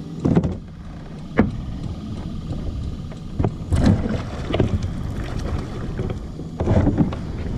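Scattered sharp knocks against a kayak's hull and water splashing as a small catfish is unhooked at the side, over a steady low rumble of wind and water.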